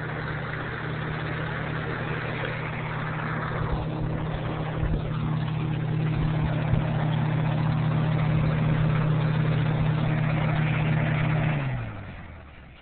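Lasko box fan running with a steady motor hum and rush of air from the blades. Near the end it is switched off: the hum slides down in pitch and fades as the fan winds down.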